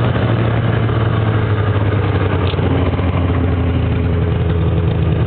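Snowmobile engine running at a steady speed, with a constant low engine note and a rushing noise over it.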